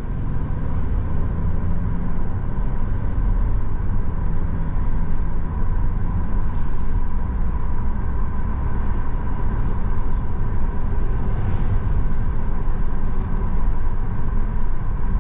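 Steady road noise heard from inside a moving car's cabin: a low rumble of tyres and engine at cruising speed, with a faint steady whine above it.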